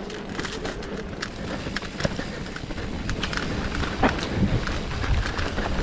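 Mountain bike riding down a dirt singletrack: the tyres rolling over dirt and dry leaves with a low rumble, and frequent clicks and knocks as the bike rattles over bumps.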